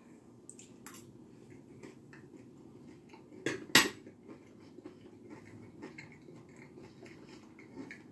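Quiet eating sounds: a fork and fingers handling chicken wings on a plate, with small clicks and scrapes throughout and two sharper clicks close together about three and a half seconds in.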